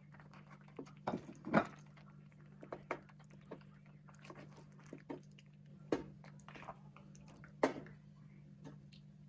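Chicken pieces coated in thick masala gravy slide off a plate into a pan and are stirred with a wooden spatula. The result is irregular wet squelches and sharp knocks, the loudest about a second and a half in and again near the end, over a steady low hum.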